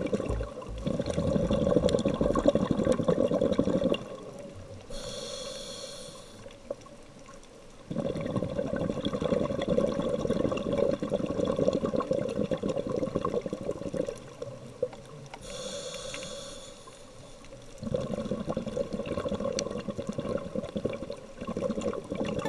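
Scuba diver breathing through a regulator, recorded underwater: three long bubbling exhalations separated by two short hissing inhalations.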